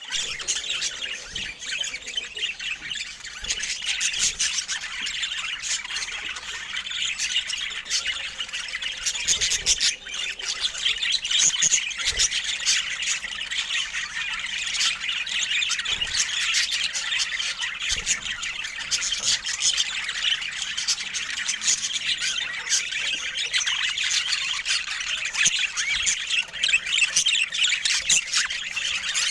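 Budgerigars chattering without a break, a dense run of quick warbles, chirps and squawks.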